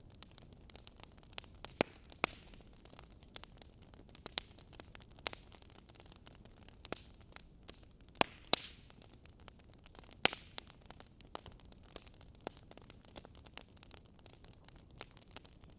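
Wood fire in a fireplace crackling: irregular sharp pops and snaps over a faint steady hiss, with a louder pair of pops a little past the middle.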